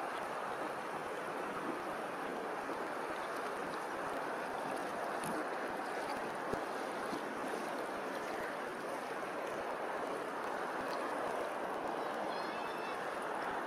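Steady rushing noise of open water lapping and rippling. A single soft knock comes about halfway through, and a brief high bird call near the end.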